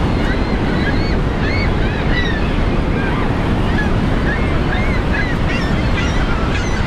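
Steady roar of Niagara Falls' rushing water, with a colony of gulls calling over it in many short rising-and-falling cries.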